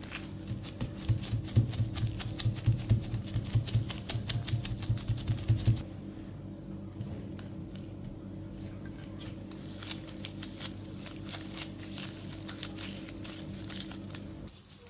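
Dough being kneaded and pressed by gloved hands on a silicone baking mat: rapid soft thumps, about three a second, for the first five or six seconds. Then lighter taps and rustles as the dough is cut and rolled into balls. A steady low hum sits underneath and stops shortly before the end.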